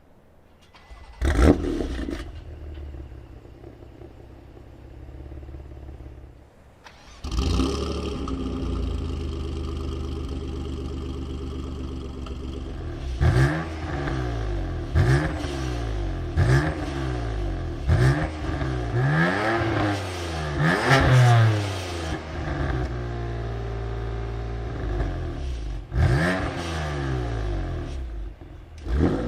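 Twin-turbo six-cylinder sports car engine starting with a sharp flare about a second in. About seven seconds in it settles into a steady idle, and from about thirteen seconds it is revved in quick blips, roughly one every second and a half, with a longer burst of revs around twenty seconds.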